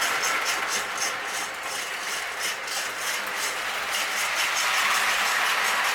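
Toy electric steam-type train running on O-27 three-rail track: a steady rolling and motor noise, with a rhythmic chug-chug hiss from the bead-filled drum under the tender turning against the center rail.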